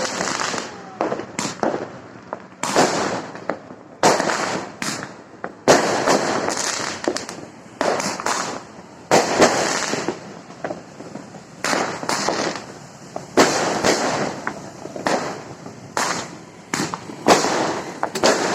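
Fireworks going off continuously: a rapid series of sharp bangs and pops, each followed by a crackling, echoing tail, several every couple of seconds.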